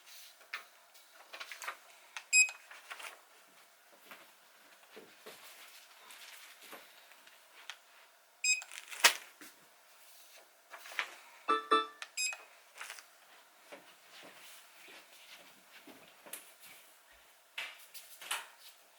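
Sparse, soft background music with a few short pitched notes, over scattered irregular clicks and rustles.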